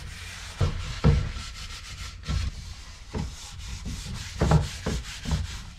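A cloth rag rubbing tung oil into a wooden panel in a series of short, uneven wiping strokes, over a steady low hum.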